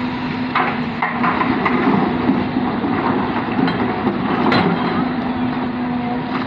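Heavy diesel earthmoving machinery, an excavator working alongside a dump truck, running steadily with a constant engine note. Several sharp clatters of stone are heard during the first second and a half and again about four and a half seconds in.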